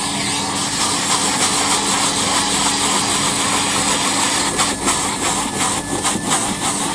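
Numatic Hetty tub vacuum cleaner running steadily, a loud rush of air over a constant motor hum, with a few brief scuffs in the second half as the nozzle works over a car rug.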